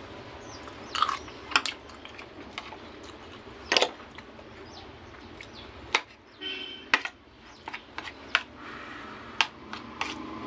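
Eating sounds: chewing, with about eight to ten short, sharp clicks and taps scattered through, such as utensils against a plate.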